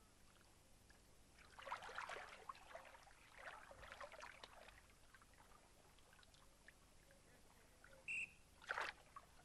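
Faint water splashing and sloshing as dolphins move at the pool edge, with a short, high blast on a dolphin trainer's whistle about eight seconds in, followed by another brief splash.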